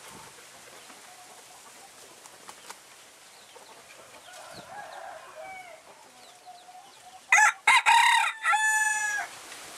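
Phoenix bantam rooster crowing once near the end: a loud crow of about two seconds in three parts, ending on a long held note.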